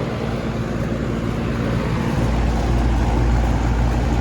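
2011 Goodman three-ton central air system running in cooling mode: a steady mechanical hum with a low rumble that grows louder about two seconds in.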